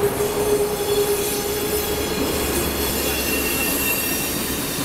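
Fully loaded timber train rolling past at close range: the locomotives, then the log wagons, with a steady rumble and a steady hum that fades out after about a second and a half. A thin, high wheel squeal comes in about three seconds in and lasts about a second.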